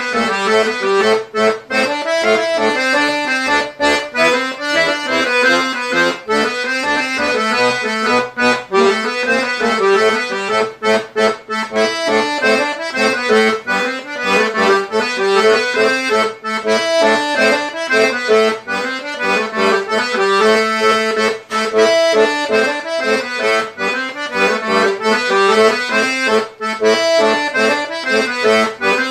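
Diatonic button accordion playing an Eastern European folk tune solo, a moving melody over bass and chords, with brief breaks between phrases.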